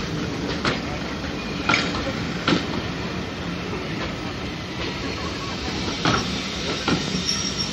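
Railway passenger coaches rolling past close by: a steady rumble of wheels on rail, with sharp clacks about once a second as the wheels cross rail joints.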